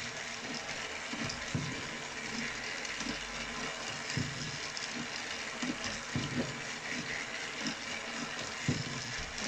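Battery-powered Mattel TrackMaster toy engines running around a plastic track: a steady motor whir and rattle, with irregular soft knocks.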